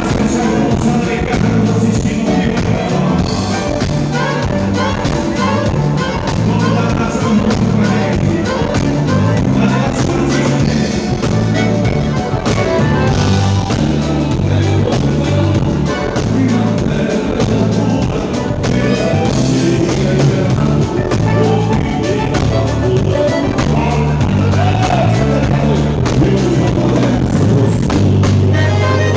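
A live band playing a song, with a moving bass line, a steady drum beat and some singing.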